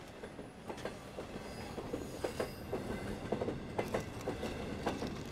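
Train running on rails, wheels clattering with many short knocks, growing steadily louder.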